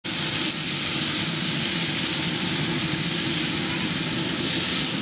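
Meat sizzling on a charcoal grill over open flames: a steady hiss.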